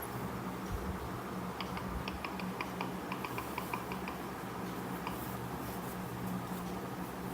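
A quick run of light plastic clicks, about a dozen in two to three seconds, then one more a second later, like the keypad buttons of a JioPhone feature phone being pressed to step through photos. A steady low hum lies underneath.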